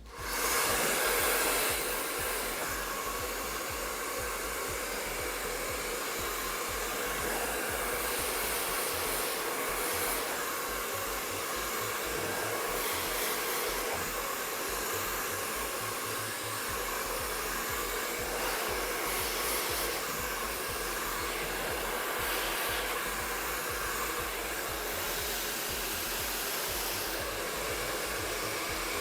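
MQ Pro Digital 2600-watt professional hair dryer running steadily, a loud rush of air with a few steady motor tones. It switches on abruptly at the start and cuts off near the end.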